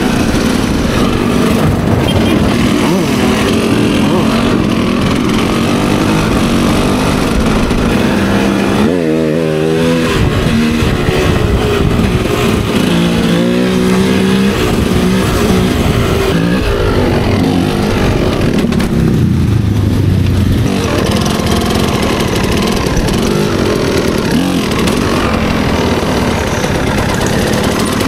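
Motorcycle engines running on the move, their pitch rising and falling with the throttle, most clearly about nine and thirteen seconds in.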